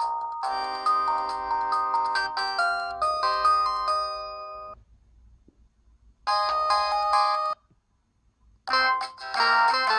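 O2 X2i flip phone's polyphonic ringtones playing chiming synthesized melodies. One tune stops a little under five seconds in, and a short phrase sounds about two seconds later. A new, busier ringtone starts near the end.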